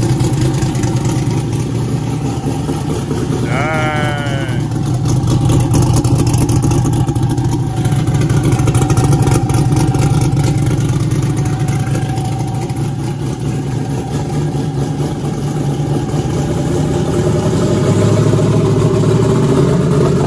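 Twin-turbocharged 427 cubic-inch Dart-block V8 idling steadily just after its first start-up, with no revving. About four seconds in there is a brief wavering squeal.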